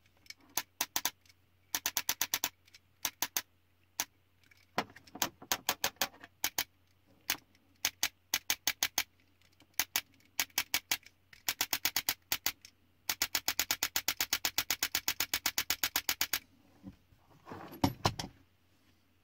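Raven HPA engine clicking as its trigger is worked: single clicks and short quick strings, then a long rapid string of about twelve clicks a second lasting over three seconds. Near the end there is a brief rattle of parts being handled.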